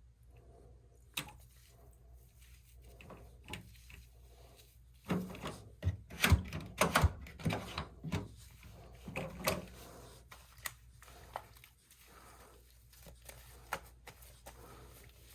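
Scattered clicks, taps and knocks of hands working at the drain-pump filter opening of a front-loading washing machine while draining its water, thickest from about five to ten seconds in.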